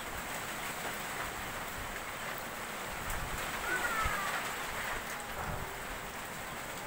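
Steady typhoon rain, an even hiss, with a brief faint falling whistle about four seconds in.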